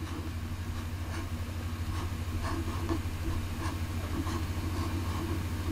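A steady low hum with a fast flutter, under faint light taps about twice a second from a stylus writing kanji strokes on a tablet screen.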